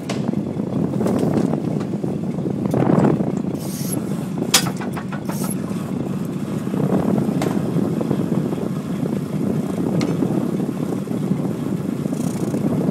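Gillnet fishing boat's engine running steadily, with a short sharp knock about four and a half seconds in.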